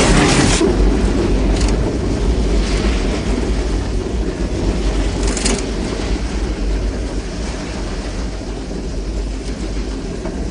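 Runaway train rumbling along the track: a deep, steady rumble with a few brief hissing rushes. A loud rush of noise, the tail of a crash through snow, cuts off within the first second.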